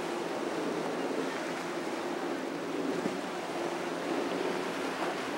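Twin outboard motors on a center-console boat running steadily at speed, a low hum under the steady hiss and splash of waves and the boat's wake.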